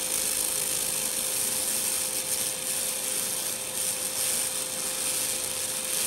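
100 W laser cleaner ablating organic growth off a nickel-aluminium bronze boat propeller: a steady, bright hissing crackle with a steady mid-pitched tone beneath it.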